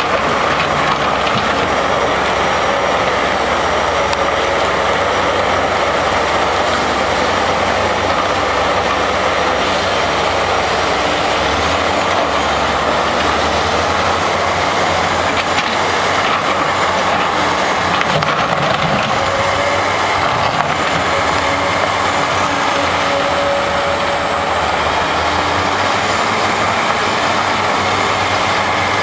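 XE210 hydraulic excavator running at a steady level, diesel engine and hydraulics working together in a continuous mechanical noise.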